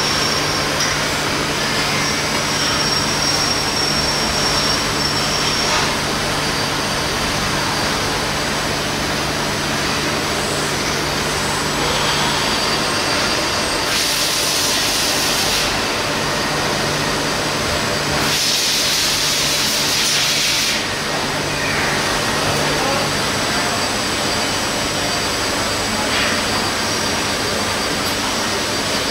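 Steady running noise of machine-shop equipment with a low hum. It is broken twice by a hiss of air, each lasting about two seconds, about 14 and 18 seconds in.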